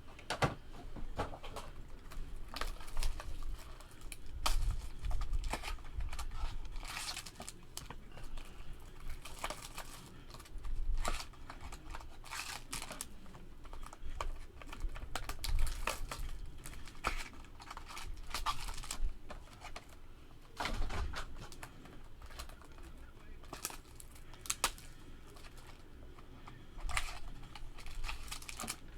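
Plastic wrap and cardboard of a sealed box of baseball cards crinkling, rustling and tearing as it is opened by hand, with irregular sharp clicks and crackles.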